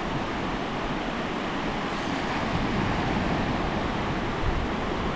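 Steady wash of sea surf on a beach, mixed with wind on the microphone.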